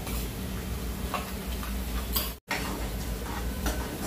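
Steel spoon clicking and scraping in a small steel bowl as spice powders are mixed with a little water, in a few separate ticks. The sound drops out for an instant a little past halfway, and afterwards a spatula stirs the frying onion-tomato masala in the pan, with a few more clicks.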